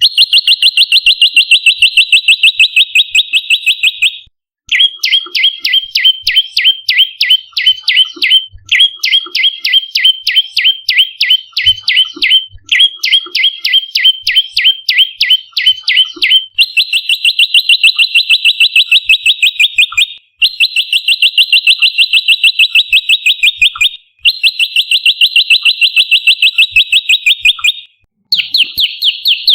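Prenjak lumut calling in rapid, evenly repeated sharp notes, about eight to ten a second, in loud phrases of three to four seconds with short pauses between. The first phrase and the last three are steady trills; the middle phrases are made of quick falling notes.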